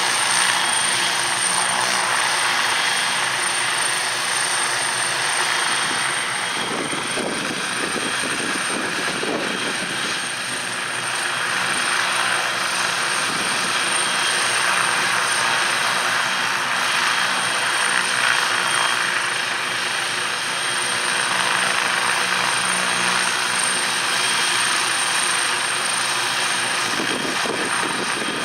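MD 500E helicopter running with its rotors and turbine engine, a steady machine sound with a continuous low hum of rotor tones that shifts briefly about six seconds in and again near the end.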